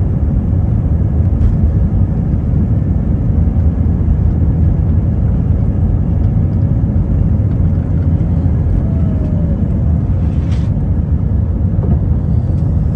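Steady low rumble inside the cabin of an Airbus A319-132 airliner, its IAE V2500 turbofan engines running, with a brief faint click about ten and a half seconds in.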